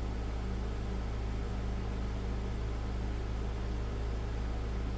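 Steady background hum and hiss, like a fan or electrical hum, running evenly with no distinct events.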